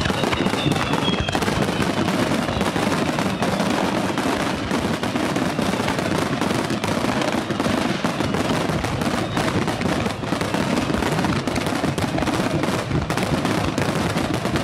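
Aerial fireworks barrage: many shells bursting in quick succession without a break, a continuous rapid crackle and popping of reports.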